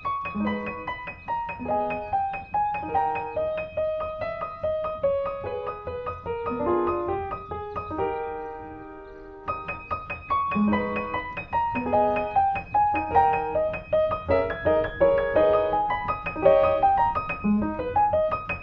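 Background piano music playing a quick melody of single notes. About eight seconds in a chord is held and fades before the tune starts again.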